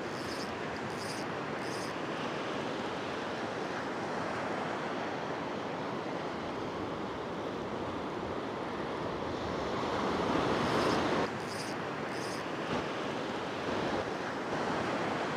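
Ocean surf washing onto a sandy beach, a steady rush of breaking waves with some wind. It swells louder about ten seconds in and drops off suddenly a second later.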